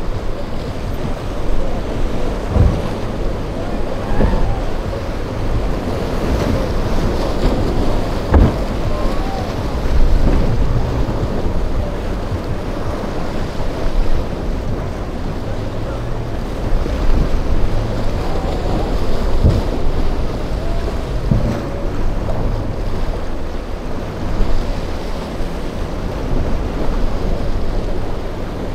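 Choppy surf splashing and churning, with wind buffeting the microphone. Under it runs the steady drone of a ZAR 85 SL rigid inflatable boat's twin outboard motors as it pushes through the rough inlet waves.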